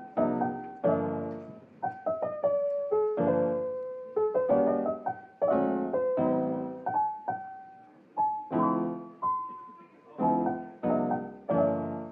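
Solo piano background music: notes and chords struck and left to ring out in short phrases.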